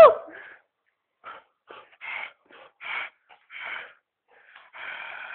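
A dog breathing hard in short noisy puffs during rough play, about one every half second to a second, then a longer breath near the end.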